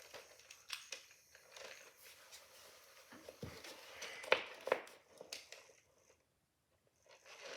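Small plastic toy pieces being handled, a scattering of light clicks and knocks with a short pause near the end.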